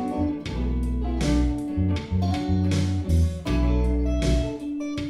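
Background music: a guitar-led instrumental with a bass line and a steady drum beat.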